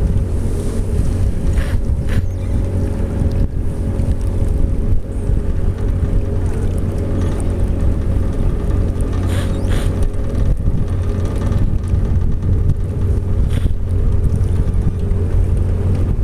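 Outboard motor running steadily as the boat cruises, a constant low drone, with occasional wind noise on the microphone.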